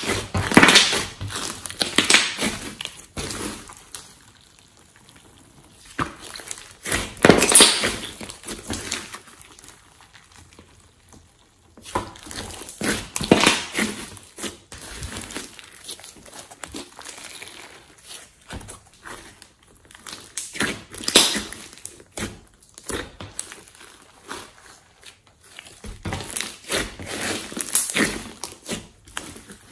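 Hands squeezing and kneading thick glossy slime, making sticky squelching and crackling sounds in bouts every few seconds, with quieter pauses between.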